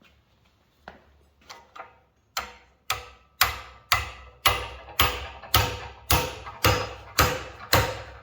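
Hammer driving forged steel wedges into a blacksmith's post vise mounting: a few light taps, then steady blows about two a second that grow louder, each with a metallic ring.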